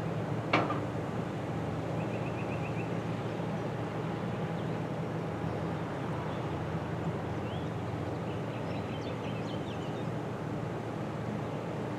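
Steady low drone of ship engines on the river, with a sharp click about half a second in and faint bird chirps in the second half.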